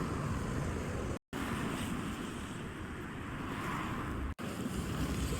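Wind buffeting the microphone outdoors, a steady low rumbling noise, broken by two brief dropouts to silence about a second in and past four seconds.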